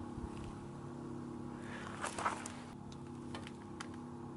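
Quiet handling of a wire grill net over a charcoal fire: a soft rustle with a few light clicks about two seconds in, then scattered faint ticks, over a steady low hum.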